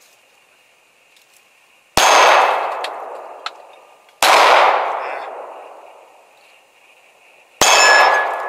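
Three shots from a Glock 23 .40-calibre pistol, about two seconds in, a couple of seconds later, and near the end, each a sharp crack followed by a long fading ring.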